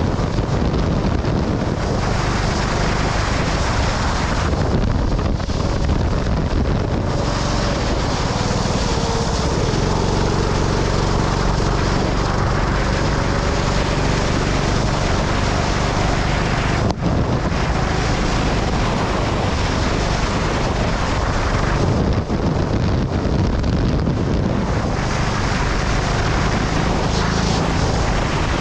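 Sprint go-kart engine running at speed, its pitch dropping and picking up again around the middle, under heavy wind buffeting on the microphone.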